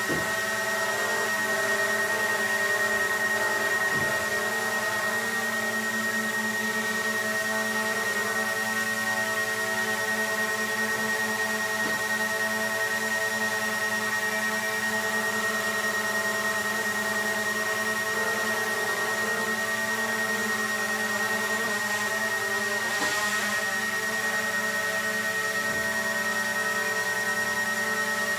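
Small quadcopter drone hovering, its propellers giving a steady whine of several pitches that wavers slightly as it holds position.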